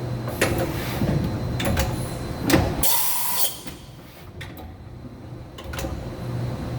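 Automatic tool changer of a Mazak HCN 4000-III horizontal machining center cycling through a tool change. It makes a series of mechanical clunks and knocks over a steady machine hum, with a short loud hiss about three seconds in.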